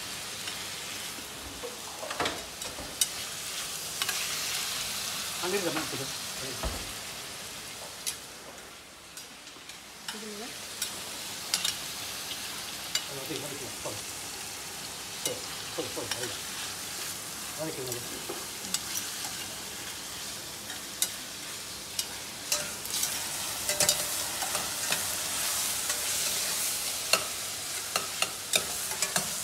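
Chicken pieces frying in a stainless-steel pan: a steady sizzle, with a metal spatula stirring and clicking against the pan many times. The sizzle briefly dies down about eight seconds in.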